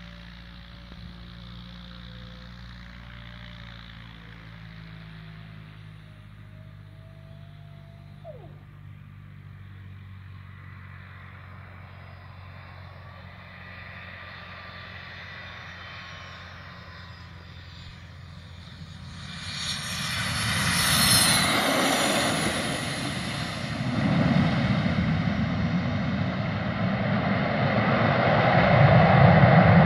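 Cessna Citation VII business jet with twin TFE731 turbofan engines on landing: faint at first on approach, it swells sharply about two-thirds of the way in, with a high whine as it passes closest, then the engine noise grows louder again during the landing roll.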